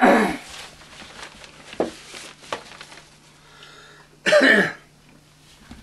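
A man coughing: a loud cough right at the start and another about four seconds in, with a few smaller throat sounds between.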